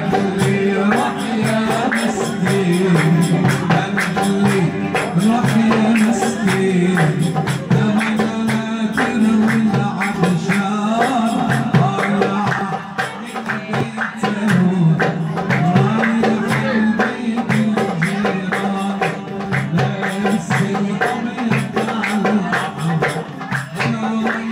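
Live folk music: a man sings into a microphone while plucking a long-necked bowl-backed lute, with hand claps keeping the rhythm.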